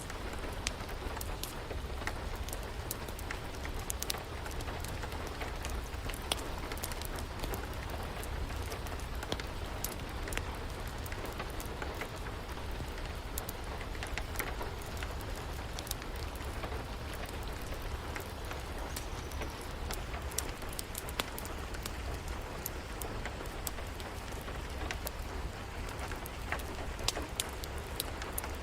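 Steady rain mixed with a crackling wood fire: an even hiss over a low rumble, scattered with many small, sharp, irregular pops.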